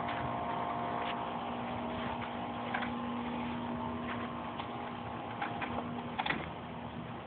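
A steady machine hum with a few faint clicks; the hum's lowest tone drops back about six seconds in.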